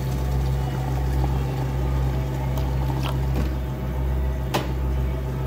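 Water being poured into plastic takeout cups and ice going in for iced Americanos, with a few sharp clinks about midway and near the end, over a steady low hum.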